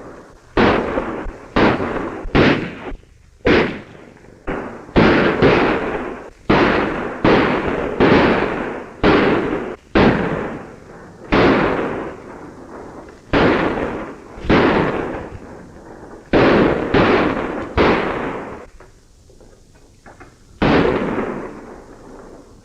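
Gunfight gunshots: a run of single shots fired about once a second, each sharp crack followed by a ringing echo. There is a pause near the end, then another shot.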